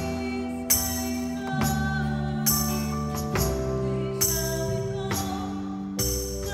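A band playing a slow song: held keyboard chords over bass, with a drum and cymbal hit about once a second.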